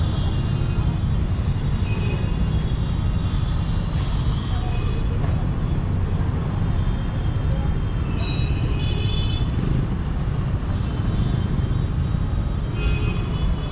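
Busy city road traffic: a steady low rumble of cars and motorcycles moving past at close range, with a few short, high-pitched vehicle horn beeps.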